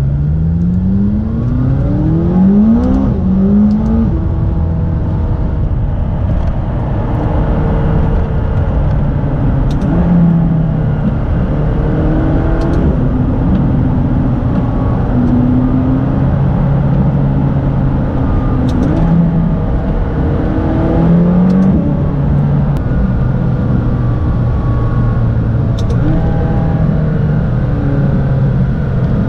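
McLaren 570GT's twin-turbo V8, heard from inside the cabin, accelerating hard: its pitch climbs for about three seconds, drops at a gear change, and climbs again. After that it runs on at a steadier pitch with small rises and falls, over a constant hum of road noise.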